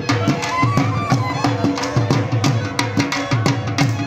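Live folk music for a circle dance: a drum beaten in a steady, driving rhythm with a pitched melody line over it.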